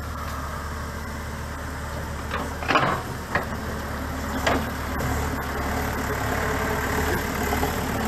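JCB backhoe loader's diesel engine running steadily as its front bucket pushes through scrub, with a few sharp knocks in the middle.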